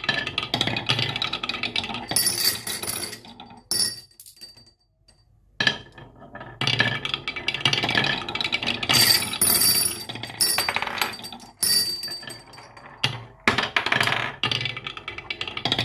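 Marbles rolling and clattering down marble-run tracks, dense rapid clicking with some high ringing clinks, in bursts broken by a short pause about four to five seconds in.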